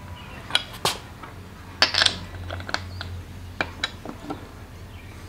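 Tire iron clinking against lug nuts as they are tightened down on a car wheel: a handful of irregular sharp metal clicks and clinks.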